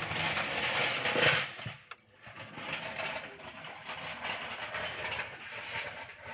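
Hand tools and parts being worked in a car's engine bay while power steering hoses and brackets are taken off: a dense mechanical rattling and scraping, loudest about a second in, with a short pause near two seconds.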